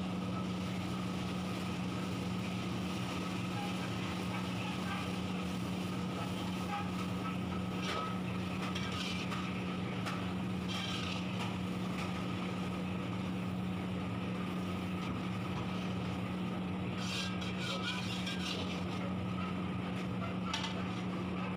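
Ginger-garlic paste and fried onions sizzling in hot oil in a large kadhai, with a long metal ladle scraping the pan a few times, more often near the end. Under it runs a steady low mechanical drone, the loudest sound, from the kitchen's burner or equipment.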